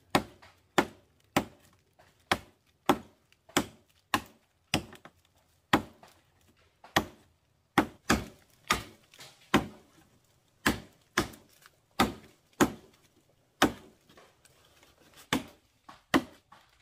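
A blade chopping into wood in steady, slightly uneven strokes, about one and a half sharp knocks a second.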